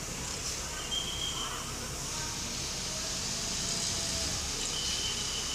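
Cab interior noise of a private bus moving slowly: a steady engine rumble under an even noisy hiss, with a faint murmur of people outside.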